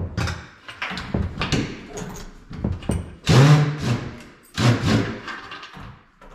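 Irregular knocking, clicking and scraping of hand work on an old wooden wall cabinet while its screws are being taken out, with two short low pitched sounds a little past the middle.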